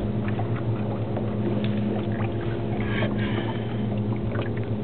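Boat's outboard motor idling steadily, with a few light knocks over it.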